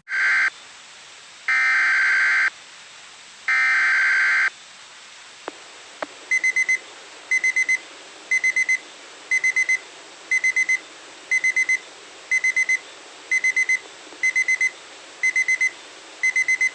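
Weather radio going into alert: three one-second data-tone bursts (the SAME header that opens an emergency broadcast), then the receiver's alarm beeping in quick clusters of about five beeps, about once a second. This signals a new Environment Canada weather alert.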